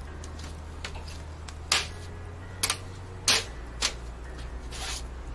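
Mesh top dust filter of a Fractal Meshify 2 XL PC case being set down and pressed into place by a gloved hand: a handful of sharp clicks and taps, one a short scrape near the end, over a steady low hum.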